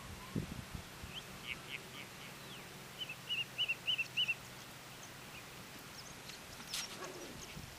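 A bird calling in open country: a few short high chirps about a second in, then a quick run of six or so whistled notes between three and four seconds in. A single sharp click comes near the end.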